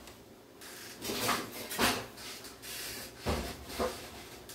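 A few short knocks and scrapes of things being handled in a kitchen, the loudest just under two seconds in and just past three seconds in.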